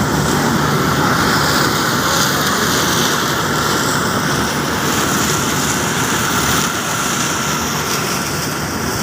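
Corn picker harvester running with a steady, loud machine noise.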